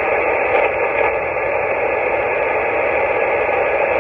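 Steady static hiss from an amateur radio transceiver's speaker, the receiver open on a frequency where no station is answering.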